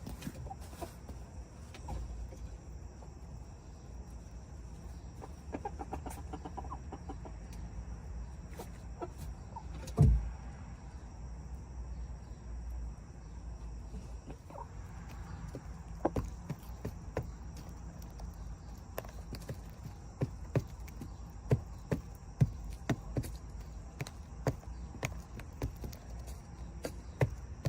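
Backyard chickens, a young cockerel among his hens, clucking at close range. A single loud thump comes about ten seconds in, and sharp taps come more and more often through the second half.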